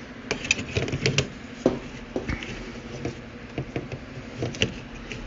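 Scattered light clicks and taps of a plastic smoke alarm being handled and turned over.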